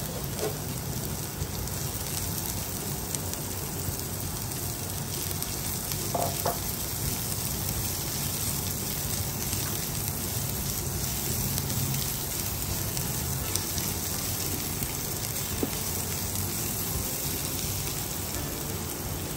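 Chopped onion and garlic sizzling steadily in a little hot oil in a non-stick frying pan while being stirred with a silicone spatula, with a few faint scrapes and taps of the spatula.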